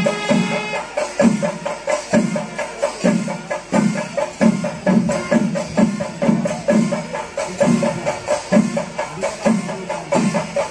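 Kerala temple percussion ensemble (chenda melam): drums beaten in a steady rhythm of about two heavy strokes a second, with dense sharp stick and cymbal strokes over them. A short held note sounds right at the start.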